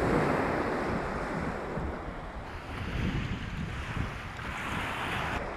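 Sea waves washing in, the surf swelling and easing a few times, with wind rumbling on the microphone.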